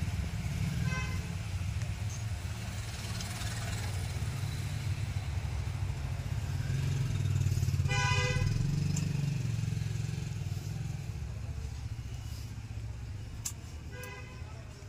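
Street traffic: a motor vehicle engine runs steadily and swells about halfway through. Short vehicle horn honks sound about a second in, loudest around eight seconds in, and again near the end.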